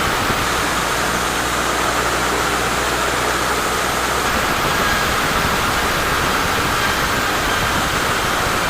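Sawmill saw running steadily through a teak log: a loud, even machine noise.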